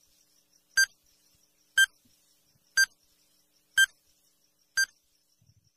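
Countdown timer sound effect: short, identical high electronic beeps, one every second, marking off the seconds of the countdown.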